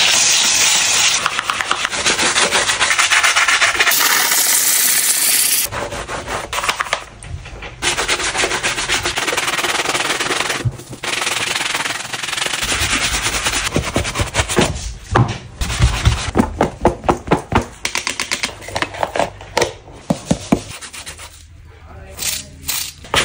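A bristle brush scrubbing and rubbing a shoe, heard as a run of short cleaning clips. The first half is long stretches of steady scrubbing; the second half is many quick, separate strokes.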